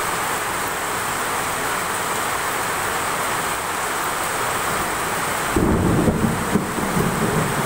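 Heavy rain pouring down onto a paved yard, a steady loud hiss. About two-thirds of the way in, a deep uneven rumble comes in under the rain and keeps going.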